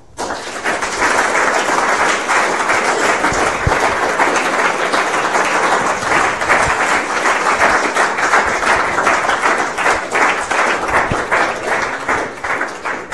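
Audience applauding: dense, steady clapping from many hands that starts abruptly and eases off near the end.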